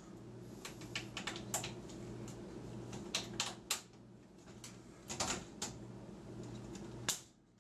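Plastic wire-harness plugs being handled, pulled from and clicked into the connector slots of a Whirlpool Cabrio washer's control board: a scattering of irregular sharp plastic clicks and taps, the loudest about five seconds in and near the end.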